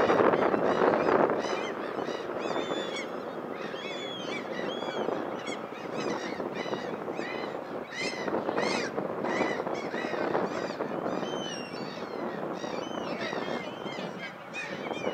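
Many birds calling, short overlapping chirping calls, over a steady rushing background noise.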